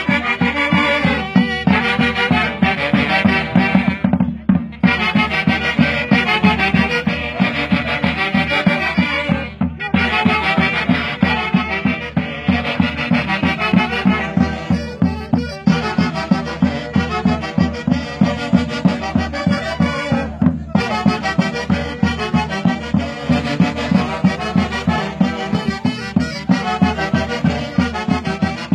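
A live band playing a Huancayo Santiago tune: wind instruments carry a dense melody over a steady, even drum beat.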